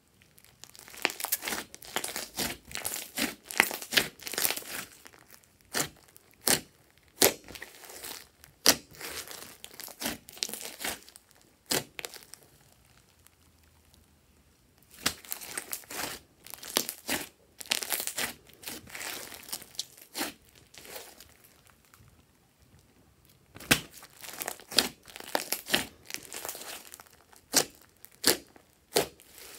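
Hands squishing, stretching and pressing a large glossy slime mixed with foam beads. The slime gives runs of sharp crackles, pops and clicks in bursts, with two short lulls.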